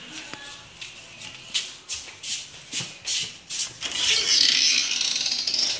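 Scuffing and rubbing noises, most likely from a handheld phone being carried while its owner walks: a run of short scuffs, about two or three a second, then a longer rough rubbing sound from about four seconds in.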